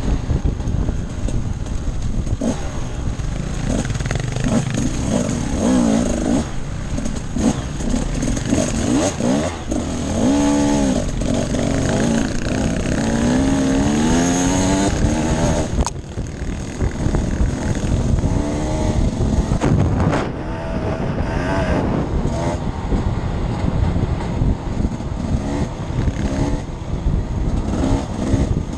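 Off-road dirt bike engine under way, its pitch rising and falling repeatedly as the throttle is worked, over a heavy rumble of wind and terrain noise.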